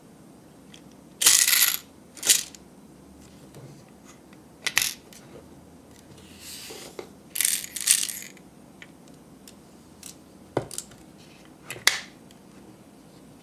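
Small hard candy mints clattering out of a miniature plastic vending-machine candy dispenser into its tray, in a series of short rattling bursts with clicks and knocks of the plastic machine being handled.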